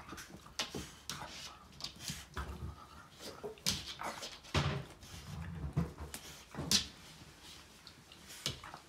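Beagle-basset puppy squirming and rolling on a fleece blanket on its dog bed, rubbing itself dry: irregular rustling and scuffing of fabric, with a few short whimpers from the puppy. The loudest moments fall in the middle of the stretch.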